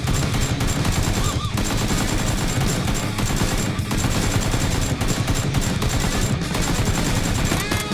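Rapid automatic gunfire sound effects in repeated machine-gun bursts, over loud background rock music.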